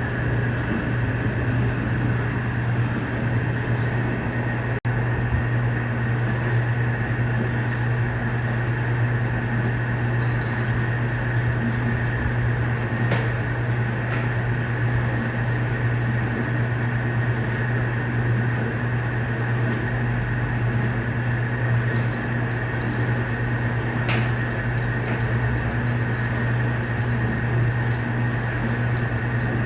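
Electrolux LPE16 washing machine running steadily with a constant low hum, with a couple of faint ticks.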